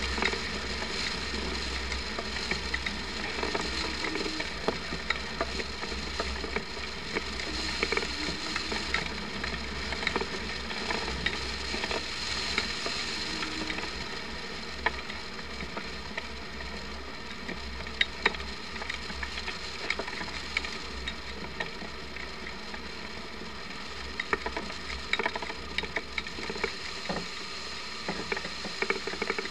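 Airflow rushing over a camera mounted on a hang glider in flight, with a low buffeting rumble and scattered sharp clicks and rattles.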